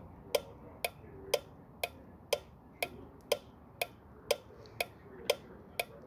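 A 5-pin automotive relay clicking on and off in a relay tester, a regular click about twice a second. Steady clicking like this shows the relay is switching, and it passes the test.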